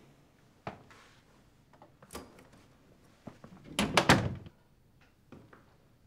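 Footsteps on a wooden floor, with a louder cluster of knocks about four seconds in, like a door being shut.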